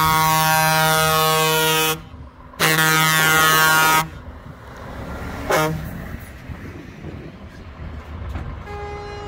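Truck air horn blowing several tones at once as a Scania truck passes: a long blast, a short break about two seconds in, a second blast that stops at about four seconds, and a brief toot a moment later. Then the quieter sound of the passing truck's engine and tyres, with another horn starting near the end.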